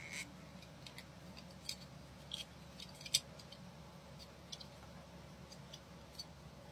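Small irregular clicks and taps of a plastic watch link removal tool being handled and adjusted, the sharpest about three seconds in, over a faint steady hum.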